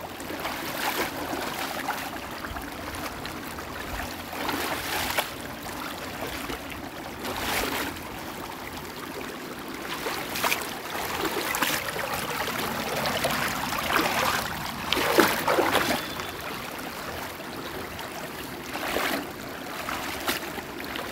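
Shallow river water running over a pebble bed, with short splashes every few seconds as hands search among the stones under the water.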